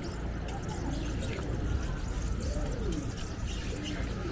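Beach ambience: a steady low rumble with faint distant voices.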